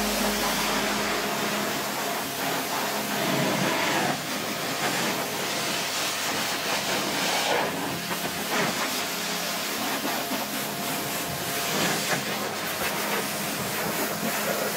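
Pressure washer jet spraying water onto a car's rear hatch, glass and bumper: a steady hiss that swells and fades as the spray sweeps across the panels.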